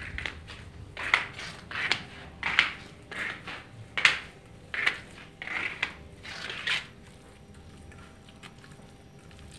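Footsteps crunching on a gritty floor, about one step every three quarters of a second, stopping about seven seconds in.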